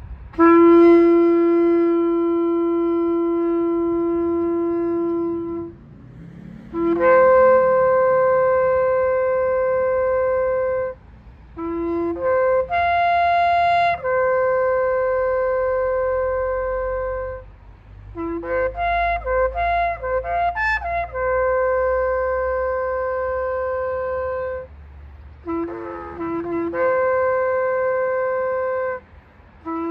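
Shofar blown in a series of long, loud held blasts. Most start on a short low note and jump up to a higher held note. About two thirds through comes a run of rapid short broken notes before another long blast.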